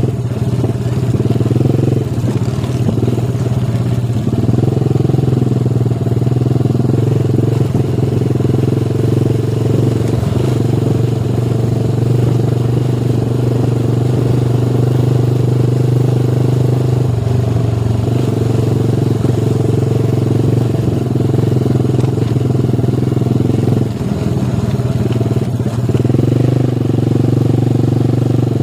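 Motorcycle engine running steadily at a fairly even pitch, heard close up, with small shifts in engine note and a brief dip in loudness near the end.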